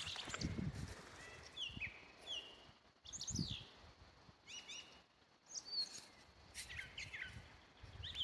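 A songbird singing from a treetop: a run of short chirped and whistled phrases, some sliding down in pitch, coming about a second apart.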